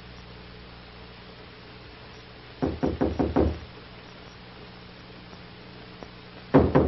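Knuckles rapping on a hotel room door: a quick run of about five raps about two and a half seconds in, then another run starting near the end.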